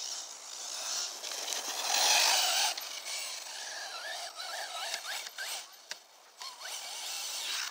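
Arrma Typhon RC buggy's tires spinning and scrabbling on dirt, a rasping scrape loudest about two seconds in, with short rising and falling whines from its electric motor.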